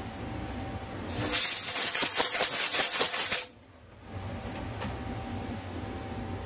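Compressed air blowing off a CNC lathe chuck and workpiece: a loud, even hiss lasting about two and a half seconds that cuts off abruptly. A low machine-shop hum runs under it.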